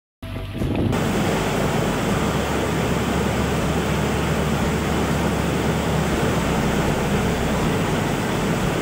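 Floodwater rushing through a breach in an earthen embankment: loud, steady, churning water noise that starts abruptly a moment in.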